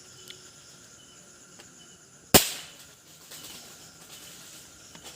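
A single sharp gunshot about two seconds in, with a short fading tail, over crickets and insects chirping steadily.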